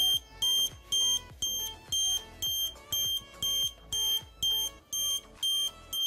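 A 12 V piezo alarm buzzer beeps a high-pitched tone about twice a second. The vibration sensor has been set off and the burglar alarm is sounding. Background music plays underneath.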